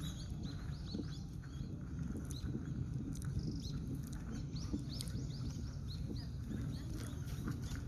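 Small birds chirping in quick, scattered short high calls, over a steady low rumble.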